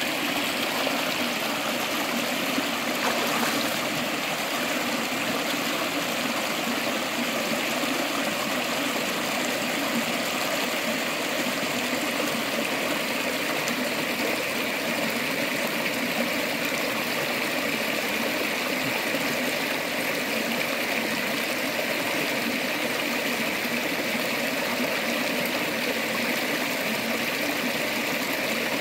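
Shallow, rocky river flowing steadily over stones: a constant, even rush of water.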